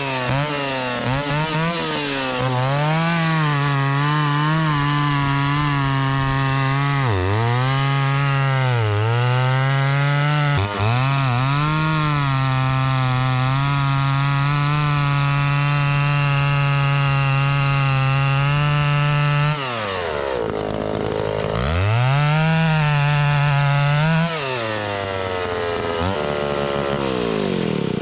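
Stihl 041 Farm Boss two-stroke chainsaw running at full throttle while cutting wood, its pitch dropping sharply as it bogs under load about 7, 9 and 11 seconds in, then holding steady. Near 20 seconds it drops back, revs up again, and near the end falls away.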